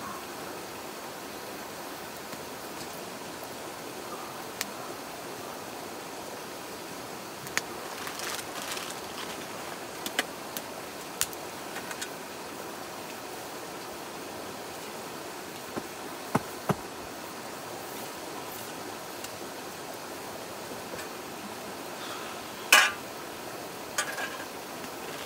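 Split-wood campfire crackling, with sharp single pops scattered through and one louder crackle about three-quarters of the way in, over a steady rushing background.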